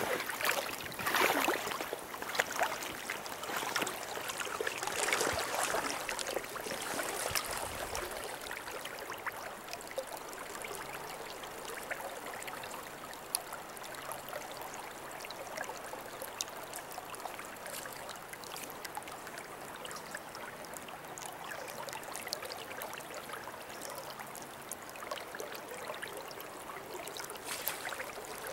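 River riffle flowing steadily around the legs of a tripod standing in the current. In the first several seconds there is louder, uneven splashing from wading through the water, which then settles into the steady rush of the riffle.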